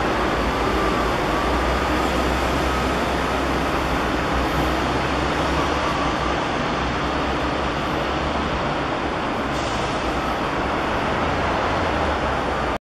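Steady rumble of distant road traffic, even and unbroken.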